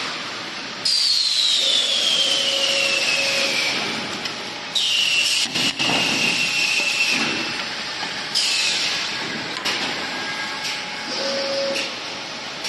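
Automatic cardboard tube cutting machine working through its cycles: three times, about four seconds apart, a cut starts abruptly with a loud hiss and a high whine that falls in pitch, over a steady machine hum.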